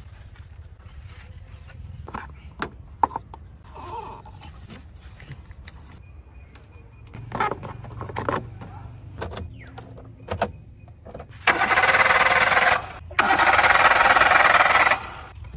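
Car restoration work sounds: scattered knocks and clanks of tools on metal over a low hum, then two loud stretches of steady hissing noise from a power or air tool near the end, the second about two seconds long.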